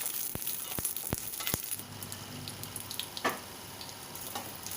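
Dried red chillies frying in hot sesame oil in a kadai: a steady sizzle with a few sharp pops in the first second and a half and one more past the middle.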